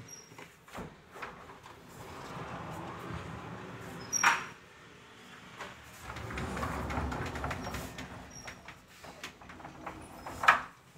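Sliding wooden wardrobe doors rolling along their tracks. One slide ends in a sharp knock about four seconds in, a second slide follows, and another sharp knock comes near the end.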